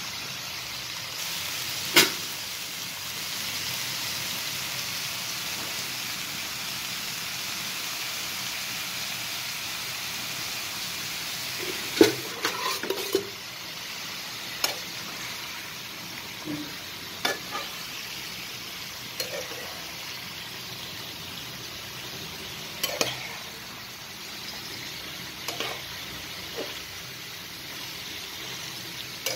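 Chopped leafy greens sizzling in a pan, with a spatula knocking and scraping against the pan now and then: a sharp knock about two seconds in and a cluster of knocks around twelve seconds, then lighter clicks.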